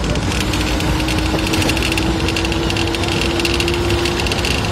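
Steady engine and road noise of a moving vehicle, with a faint steady hum from just after the start until near the end.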